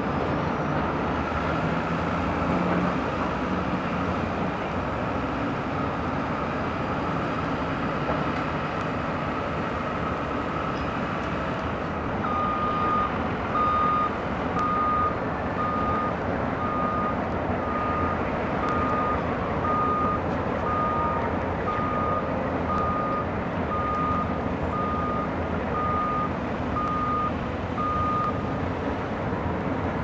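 Several Alco diesel locomotives running as they pull a freight train slowly past. From about twelve seconds in, a reversing alarm beeps about once a second over it until near the end.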